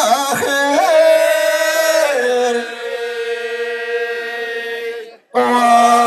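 Men's voices in Amazigh tandamt-style chanted singing, holding long notes that step down in pitch. It breaks off briefly about five seconds in before a new held note starts.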